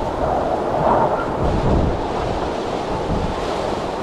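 Strong gusty wind blowing across the microphone, with low rumbling buffets that peak about one to two seconds in.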